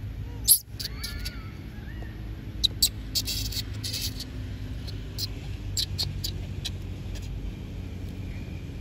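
Young long-tailed macaques giving a few short squeaks in the first two seconds, among sharp clicks and a burst of crackling about three seconds in, over a steady low rumble.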